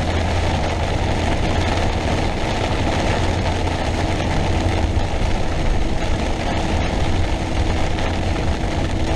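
Heavy rain pelting a motorhome's windshield and roof while it drives, as a steady loud hiss over the low, steady drone of the engine and road.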